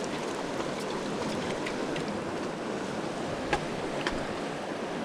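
Fast-flowing river water rushing steadily over rocks, with a few faint clicks scattered through.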